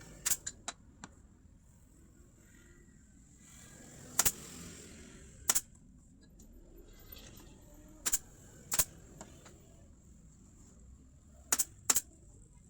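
About ten sharp taps at irregular moments, a quick run of three near the start and then singly and in pairs, over a faint steady high-pitched whine.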